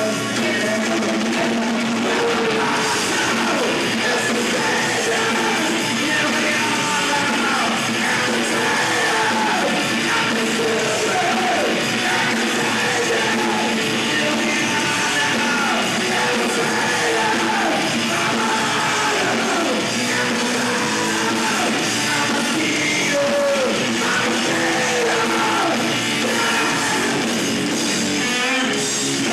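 Rock band playing live with a singer; the loud, dense music runs on without a break.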